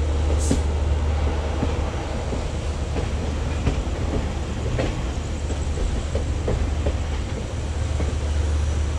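Yercaud Express passenger train running, heard from inside a coach: a steady rumble of the moving train with irregular clacks of the wheels over rail joints and points.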